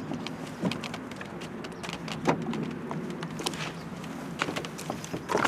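Scattered light knocks, clicks and scrapes from feet and hands on an open canoe as a paddler climbs into the front, over a steady background noise.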